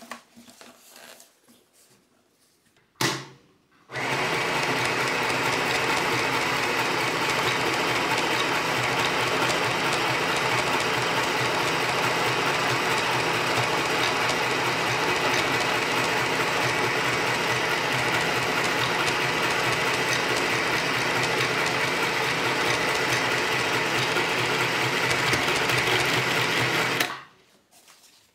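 Easymaxx compact sewing machine running at a steady speed, stitching through a thick fabric; it starts about four seconds in, just after a click, and stops abruptly shortly before the end.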